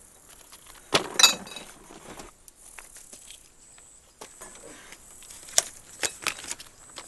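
Scattered sharp clinks of small hard objects. The loudest comes about a second in, with a brief ring, and a few more follow near the end.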